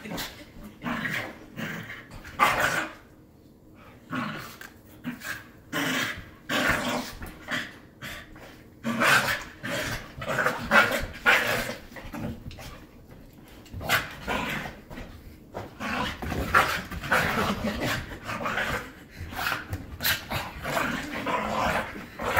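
Two puppies play-fighting, growling and barking in short irregular bursts all through.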